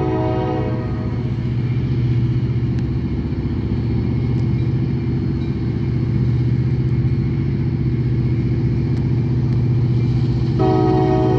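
Approaching diesel freight locomotive: its engine runs with a steady low drone, and its air horn sounds a chord of several tones until about a second in, breaks off, then sounds again near the end.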